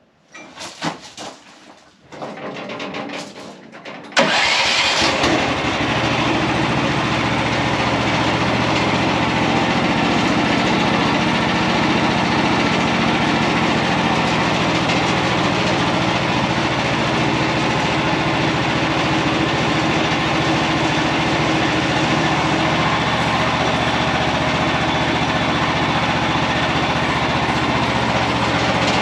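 OS31 portable bandsaw sawmill's gasoline engine being started: a few seconds of uneven cranking, then it catches about four seconds in and runs steadily at speed.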